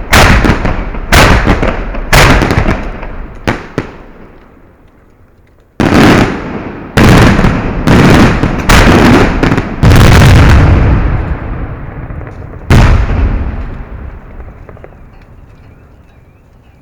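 Fireworks going off at close range: a series of very loud, sharp blasts, each ringing out and fading. Four come about a second apart, then after a lull of about two seconds five more come in quick succession, and a last blast near the end dies away.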